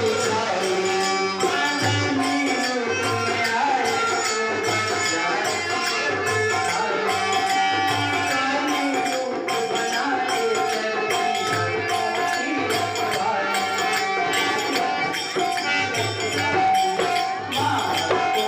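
Indian folk devotional music: a sustained melody over a steady drum beat, with jingling tambourine-like percussion.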